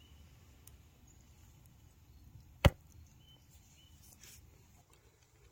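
Quiet background broken once, about two and a half seconds in, by a single sharp snap.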